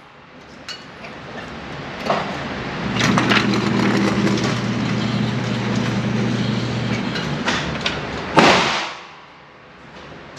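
Motorized target carrier running on its overhead track, sending the paper target downrange: a steady electric motor hum for about four seconds. About eight seconds in, a single loud gunshot cracks and echoes off the concrete range.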